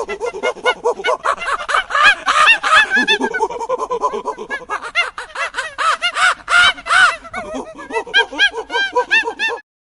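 A flock of birds calling, with many short rising-and-falling calls overlapping several times a second, until they stop abruptly near the end.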